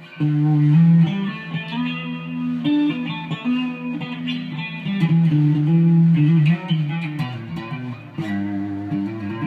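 Custom KH-1 electric guitar played on its front pickup in full humbucker mode, coil tap off: a run of bluesy single notes and double-stops with a warm, bluesy Gibson sound.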